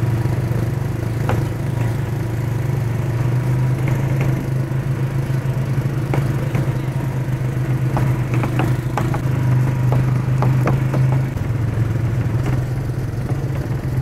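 ATV engine running steadily as the quad is ridden along a rough dirt trail, with scattered clatter and knocks, thickest near the middle and later part, as it bounces over stones.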